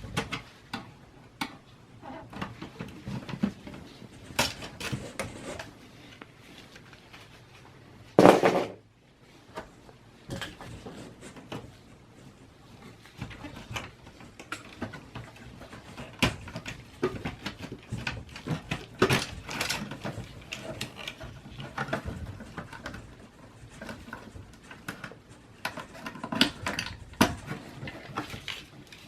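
Flathead screwdriver prying the clips of a desktop PC's plastic front bezel and handling the case: scattered clicks, taps and knocks of plastic and metal, with one louder, longer rattle about eight seconds in.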